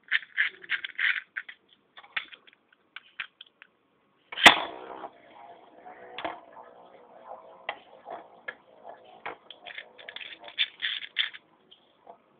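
A run of sharp plastic clicks, then a loud crack about four seconds in as the fake Big Bang Pegasus and Earth Eagle Beyblades are launched. A whirring ring of spinning tops follows, broken by repeated clicks and clatter as they clash.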